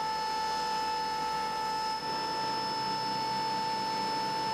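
A steady mechanical hum with a high, unchanging whine over a hiss, like machinery or ground equipment running.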